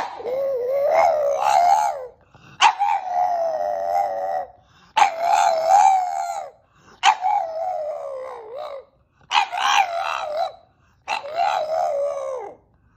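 French bulldog howling: six drawn-out howls of one to two seconds each, separated by short pauses, most sagging in pitch at the end.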